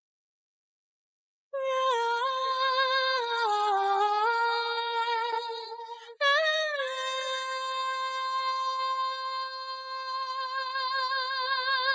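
A high singing voice with no accompaniment, singing a wordless vocalise. It comes in after about a second and a half of silence: a phrase that dips and climbs back, then a second phrase that slides down and is held long with vibrato.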